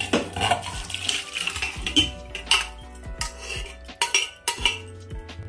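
A steel ladle repeatedly clinking and scraping against the inside of a metal pressure cooker as thick cooked dal is scooped out, then the cooker knocking against a steel bowl as the dal is poured in.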